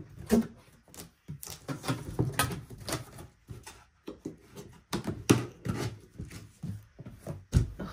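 Cardboard boxes being handled: irregular scraping, rustling and knocks as a boxed machine is lifted out of its shipping carton and the box flap is opened. The loudest knocks come near the start, around five seconds in and near the end.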